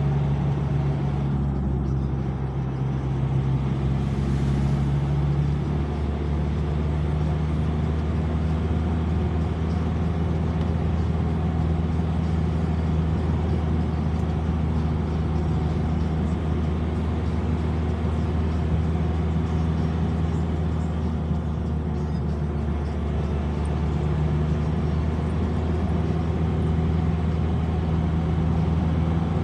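Engine and road noise heard inside the cab of an old car driving at a steady speed. The engine's drone holds steady, its pitch rising a little a couple of times.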